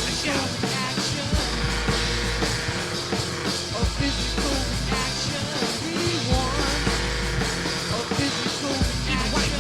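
Dense instrumental music with a rock feel: a deep bass note that comes and goes every couple of seconds, sharp percussive hits, and layered pitched sounds.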